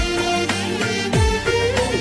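Background music: a melody over sustained notes, with a deep drum stroke that drops in pitch about every two-thirds of a second.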